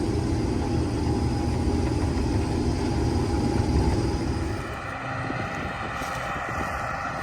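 Case IH 2388 combine running steadily. About four and a half seconds in, the sound drops a little and becomes thinner and higher in tone.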